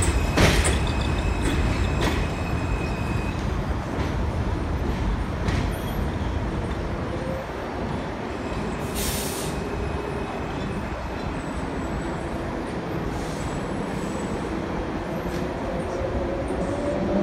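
New York City Subway train pulling out of an elevated station and running away down the tracks, with a steady rumble and sharp clicks of wheels over rail joints in the first few seconds. A brief hiss comes about nine seconds in, and a rising whine builds near the end.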